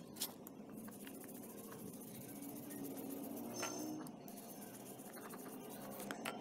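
Faint scraping of a flat wooden stick stirring a pink liquid in a bowl, with a few light clicks and clinks of the stick against the bowl.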